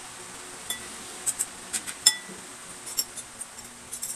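Metal chopsticks and spoons clicking and clinking against ceramic bowls during eating, a dozen or so light, irregular taps, the loudest about two seconds in ringing briefly.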